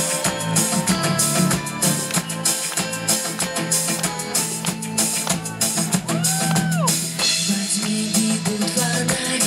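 A live pop band is playing through a PA: a steady drum-kit beat with electric guitar. A single tone rises and falls about six seconds in.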